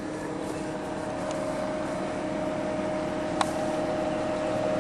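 A steady mechanical hum with a constant tone, growing slightly louder, and a single sharp click about three and a half seconds in.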